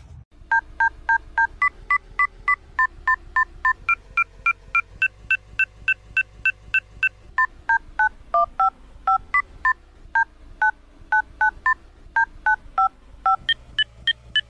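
Smartphone dial-pad touch tones, one short two-tone beep per key press, about three a second. The changing keys pick out a simple melody.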